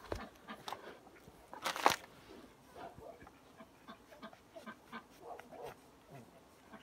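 Himalayan sheepdog puppies suckling at their mother, with small wet smacking clicks and short squeaks and grunts. A brief louder burst of noise about two seconds in.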